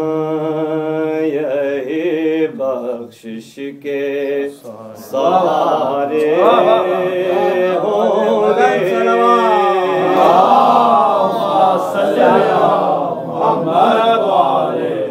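Unaccompanied male voice chanting an Urdu noha (Shia lament), holding long notes. About five seconds in, a group of voices joins in, chanting together.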